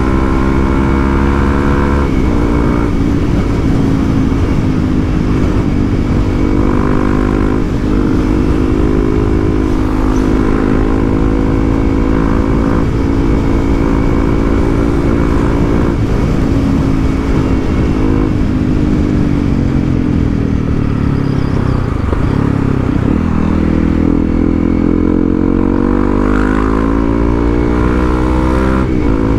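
Honda CRF300L single-cylinder engine with an aftermarket exhaust, ridden on the road: its note rises and falls with throttle and gear changes. It eases off in a long slowdown past the middle, then pulls away again near the end.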